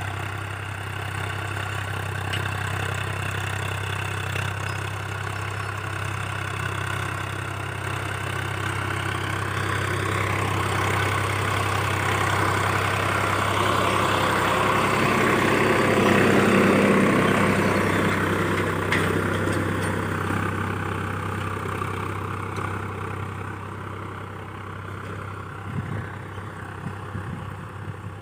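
Tractor diesel engine running steadily. It grows louder toward the middle, then fades again.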